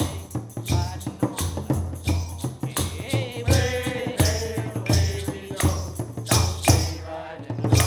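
A sea shanty sung by a group of men to a steady drum beat of about two beats a second, with tambourines jingling.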